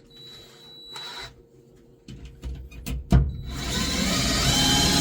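A few handling clicks and a sharp knock, then about three and a half seconds in a power drill with a spot weld cutter bit starts and runs steadily, cutting out spot welds in sheet-metal body panels.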